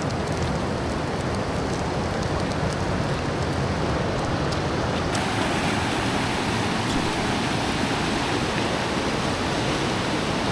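Stream water rushing over rapids and small cascades, a steady noise that grows slightly brighter about halfway through.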